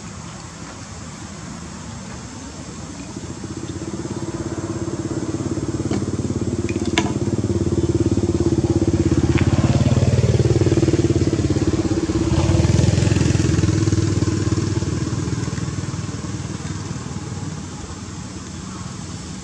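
A vehicle engine passing: a steady engine note grows louder over several seconds, peaks in the middle and fades away again. A few sharp clicks come just before the peak.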